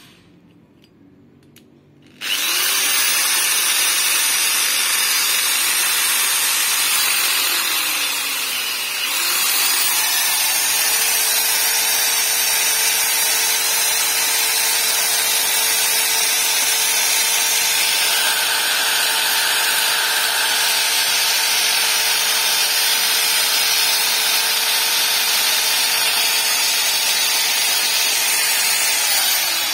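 Electric hand drill spinning a grinding bit in the port of a Suzuki Tornado two-stroke cylinder, porting the block. It starts suddenly about two seconds in and runs loud and steady, dips briefly about nine seconds in, then winds down at the very end.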